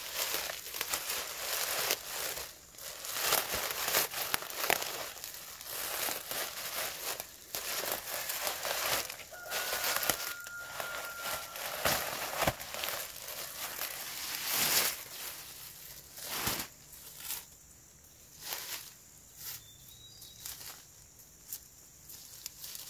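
Leafy stems being picked and pushed into a thin plastic bag: the plastic crinkles and the leaves rustle in quick, irregular bursts, thinning out over the last few seconds.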